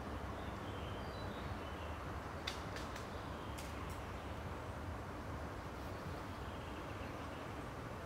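Steady outdoor background noise with a low rumble like distant traffic, faint high chirps now and then, and a few soft clicks around the middle.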